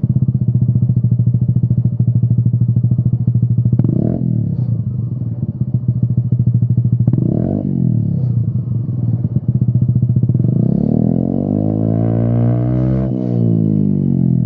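Peugeot Speedfight 125 scooter engine running through a Lextek XP8C carbon aftermarket silencer: idling, blipped twice in short revs about four and seven and a half seconds in, then revved up from about ten seconds, held high near thirteen seconds, and let fall back to idle.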